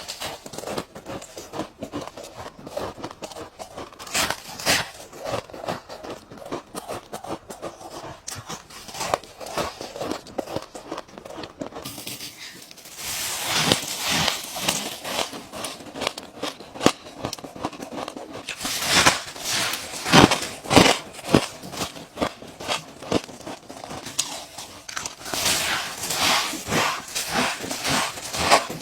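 Ice being bitten and crunched between teeth, a dense, irregular run of sharp cracks that grows louder from about halfway through.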